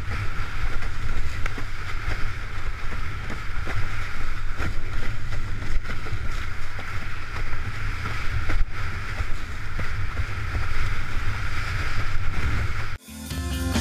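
Strong wind buffeting the microphone over the steady rush of water past a windsurf board sailing fast. Near the end it cuts off abruptly and guitar music begins.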